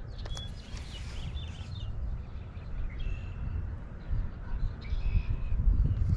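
Wind rumbling on the microphone, with scattered bird calls: short chirps in the first second and again around the middle and near the end. A brief click comes near the start.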